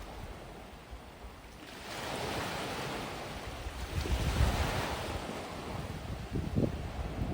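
Gentle sea waves washing onto a sandy beach, the surf swelling about two seconds in and again a couple of seconds later, with wind buffeting the microphone in low gusts.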